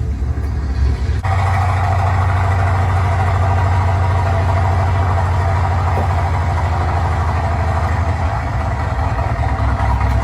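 Radial piston engine of a full-size T-28 Trojan running steadily, getting louder and fuller about a second in.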